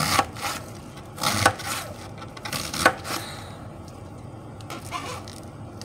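A kitchen knife cuts through a head of cabbage down onto a cutting board. There are several separate cutting strokes, and the loudest come about a second and a half and about three seconds in.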